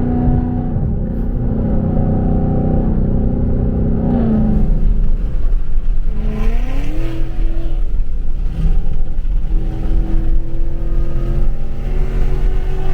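Ford Coyote 5.0 V8 of a Mustang GT with long-tube headers, its exhaust in track mode, droning steadily while driving. About four seconds in the revs drop, then climb again a couple of seconds later and settle into a steady drone.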